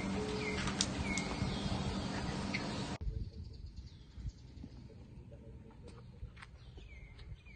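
Small birds chirping now and then over outdoor background noise. The background drops abruptly about three seconds in, and the chirps carry on above a quieter hiss.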